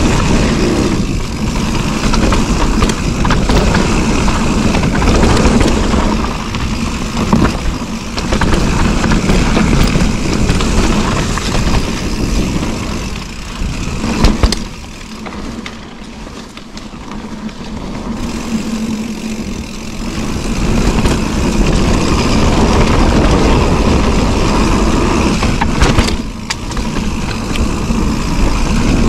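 Mountain bike rolling fast down a dirt singletrack: a loud, steady rushing rumble of wind on the camera microphone and tyres on dirt. A sharp clack comes about 14 seconds in, then the noise eases for a few seconds before building again.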